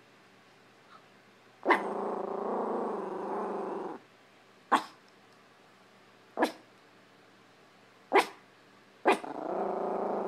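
Chihuahua growling and barking in warning at a laundry hamper. A sharp bark runs into a low growl of about two seconds, then come four single sharp barks a second or two apart, then another growl near the end.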